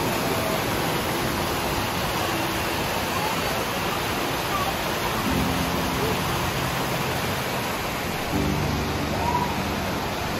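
Steady rushing of a mountain stream pouring down a small rock waterfall, white water tumbling into a pool.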